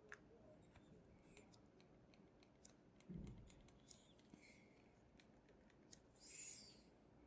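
Faint clicks and creaks from an Oppo Find N6 foldable phone's screen as it is opened, the creaking the owner is showing. A soft low thump comes about three seconds in and a brief rustle a little after six seconds.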